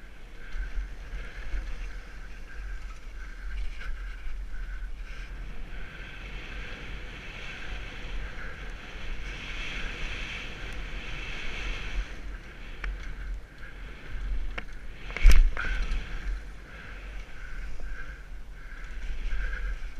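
Wind buffeting a helmet-mounted camera and tyres rattling over a dirt trail on a fast mountain-bike descent, with one loud knock from a hard bump about fifteen seconds in.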